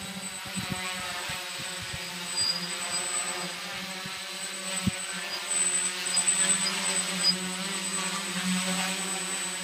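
DJI F450 quadcopter's four electric motors and propellers buzzing steadily as it hovers, with a thin high motor whine above the propeller hum.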